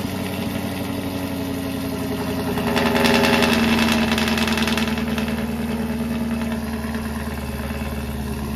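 Car engine idling steadily just after being started, with a brief rise in loudness about three seconds in before it settles again.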